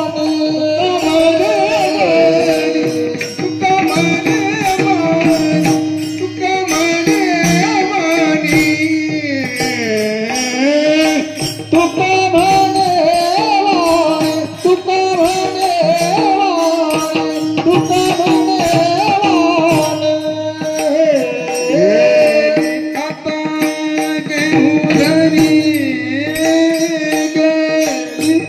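Devotional abhang music: a singer draws out long, bending melodic phrases over a steady held drone, with light percussion keeping time.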